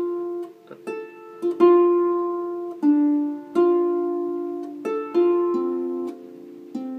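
Double-strung harp: single plucked notes and short pairs of notes, each ringing and dying away, in a slow, uneven phrase. It is a Scottish-style figure fingered the hard way, as it would have to be played on a single-strung harp.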